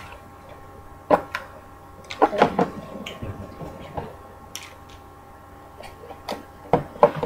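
Cardboard game box and paper inserts being handled: scattered rustles and light clicks as the box is turned over and opened and the papers inside are pulled out.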